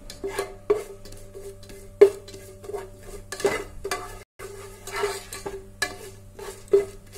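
A slotted spatula scraping and knocking against the bottom of a non-stick saucepan, stirring whole spices sautéing in ghee. It is a quick run of repeated strokes, each leaving a short ring from the pan.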